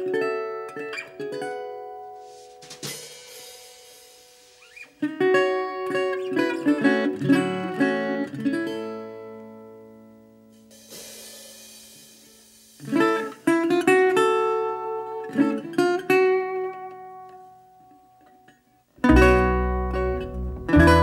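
Background music: a plucked guitar tune in short phrases with quieter gaps between them. About two seconds before the end a fuller, louder arrangement with a strong bass line comes in.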